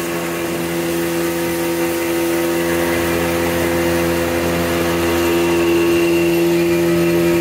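Speedboat engine running steadily at speed, a constant engine tone over the rush of the ride, growing slightly louder.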